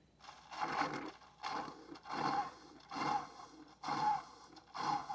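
Tastyle single-serve coffee maker starting its brew cycle, gurgling and hissing in repeated surges about once a second as the heated water begins to push through.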